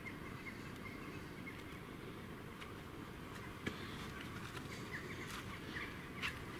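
Faint night-time woodland ambience: a steady hiss with a few faint, short high chirps, a sharp click about halfway through and a few more clicks near the end.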